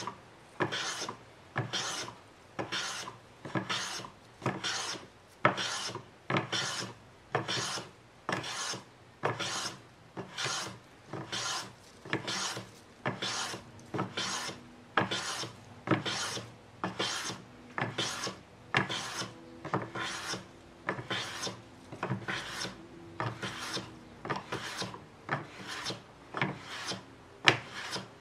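A Japanese adjustable-angle chamfer plane (jiyū-kaku mentori kanna) cutting along the corner of a wooden stick in repeated hand strokes. It makes about three short swishing cuts every two seconds. The restored plane is taking full curled shavings.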